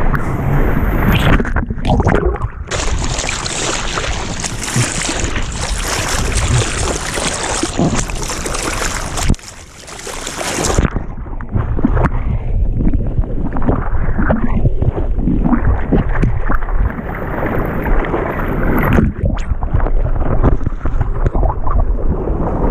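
Water rushing and splashing over a GoPro mounted on a surfboard moving through the surf, with wind buffeting the microphone. The sound drops away briefly about nine seconds in and is duller, without the hiss, from about eleven seconds on.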